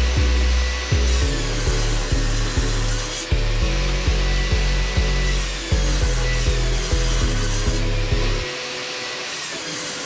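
Jobsite table saw running and ripping hardwood boards into strips, the cutting noise rising and easing cut after cut. Background music with a bass line plays under it and stops near the end.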